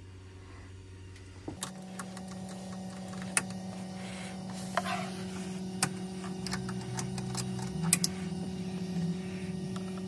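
Wing nuts on a boat's air-conditioning seawater strainer being unscrewed by hand: scattered metal clicks and taps. Under them a steady hum starts about a second and a half in.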